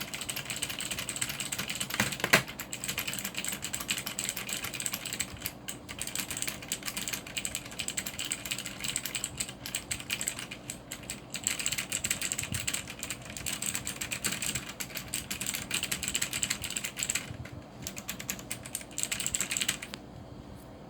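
Continuous fast typing on a Cherry G80-3800 mechanical keyboard with clicky Cherry MX Blue switches: a dense stream of sharp key clicks with a few short pauses. There is one louder knock a little over two seconds in, and the typing stops about a second before the end.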